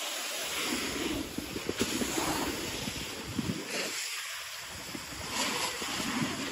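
Wind rushing over a phone microphone while sliding down a snow slope at speed, mixed with the scraping hiss of a snowboard's edge on packed snow.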